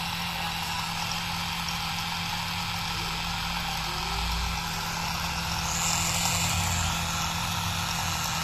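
Small DC motor driving a miniature PVC model of a Kubota diesel engine, running with a steady, even hum.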